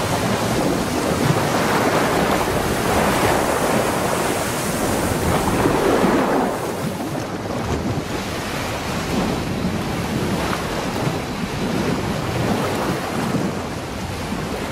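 Rushing, surging water and wind noise, like a rough sea against a boat, loudest in the first half and easing slightly after that.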